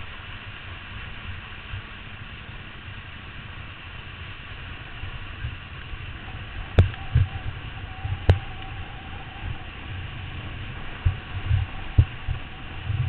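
Wind buffeting a helmet-mounted camera's microphone over the rush of water and spray under a kneeboard towed at speed. Sharp knocks come about seven and eight seconds in, with a smaller one near the end.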